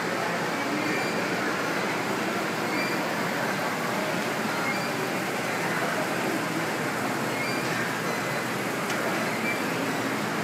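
Steady, even background din of a gym, with no distinct clanks of the weight stack.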